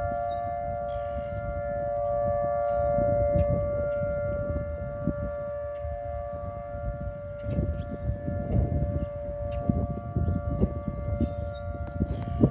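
Tornado warning siren sounding during a siren test, holding a steady tone whose loudness swells and eases slightly. Irregular low rumbling runs underneath.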